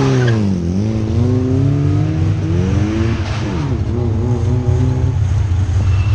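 Car engine revving: the pitch dips about half a second in, climbs steadily for two seconds, drops sharply, then holds and falls again near the end, over a steady low engine drone.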